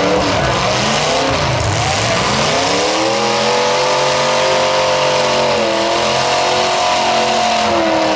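Demolition derby car engines revving hard, with the pitch swinging up and down; about three seconds in, one engine is held at high revs for several seconds, dipping briefly once, before dropping off near the end.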